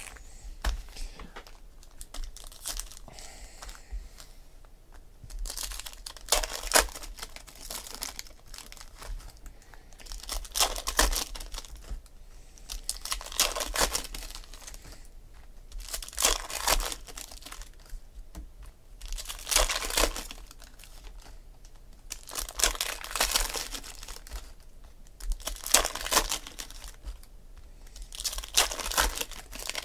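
Foil wrappers of Panini Select football card packs crinkling and tearing as they are ripped open by hand, in about eight separate bursts roughly three seconds apart.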